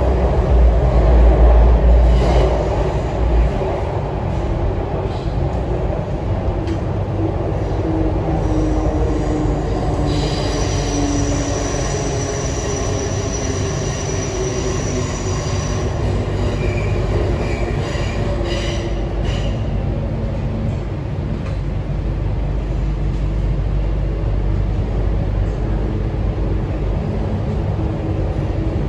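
MTR C-train metro car running on the Kwun Tong Line, heard from inside the passenger saloon: a continuous low rumble of wheels on rail. A high, steady squeal comes in about ten seconds in and lasts some six seconds.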